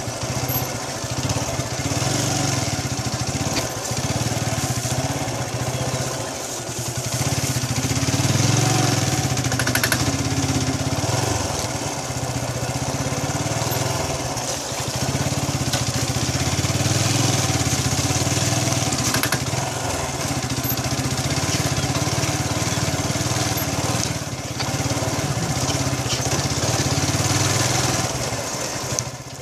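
Motorcycle engine running while the bike is ridden over a rough, muddy dirt road. The engine note rises and falls with the throttle under a steady rush of wind and road noise. The level dips briefly near the end.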